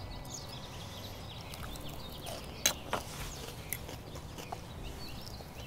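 Quiet outdoor background with small birds chirping, and a few light, sharp clicks of a knife and fork against a wooden cutting board.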